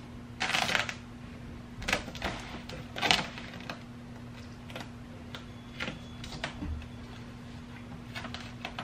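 Crinkling and rustling of a self-adhesive foam insulation sheet being handled and pressed onto the underside of a car's roof panel. It comes in several short bursts, the loudest about half a second and about three seconds in, with lighter clicks after, over a steady low hum.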